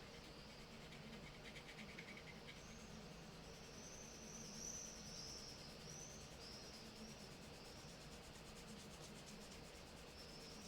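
Near silence, with faint high-pitched chirping in the background: a series of short arching notes, repeated over and over.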